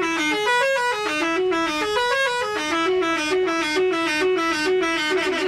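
Bus telolet musical horn playing a quick melody whose notes step up and down, repeating a short phrase. Near the end it turns into a rapid alternation between two notes.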